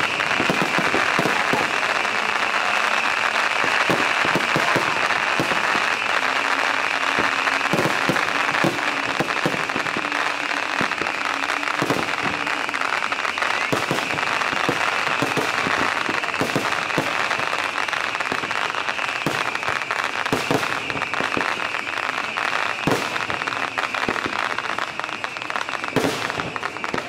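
Fireworks display going off: a dense, continuous run of bangs and crackles over a steady noisy hiss.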